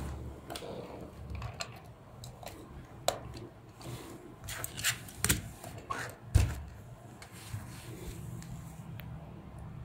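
Handling noise: scattered light clicks and taps of test leads and alligator clips against a plastic toy's battery compartment as the leads are fitted, with two louder knocks about five and six and a half seconds in.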